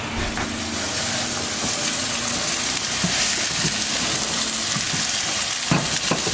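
Raw ground-beef burger patties sizzling steadily in hot grease in a frying pan, with a couple of short knocks near the end.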